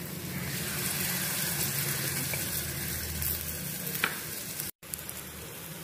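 Wheat-flour and besan batter with potato and onion frying in oil in a non-stick pan: a steady sizzle while it is spread around with a spoon. There is a short click about four seconds in, and the sound cuts out for a moment soon after.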